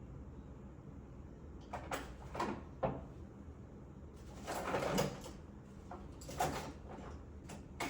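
Rummaging among tools and small parts on a desk while searching for a screwdriver: several short bursts of clattering and scraping, the longest and loudest about halfway through.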